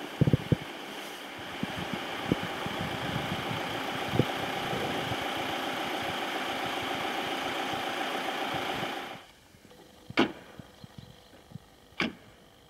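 Wind blowing across the camera microphone, a steady rushing noise with a few knocks of the camera being handled, that drops away suddenly about nine seconds in, leaving two sharp clicks near the end.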